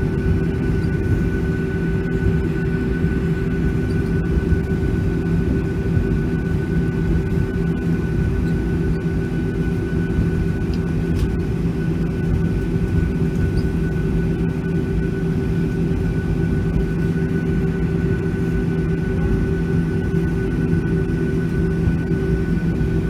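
Boeing 737-800's CFM56 jet engines heard from inside the passenger cabin: a steady, unchanging drone and rush with a constant hum.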